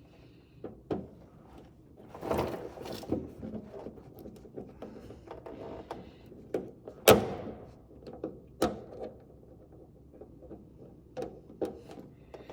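Hand tools and hardware knocking, clicking and scraping while a car's front spoiler is fastened onto its mounting studs, with one sharp knock about seven seconds in.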